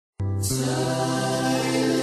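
Christmas music made of long held chords with singing in it, starting abruptly a moment in.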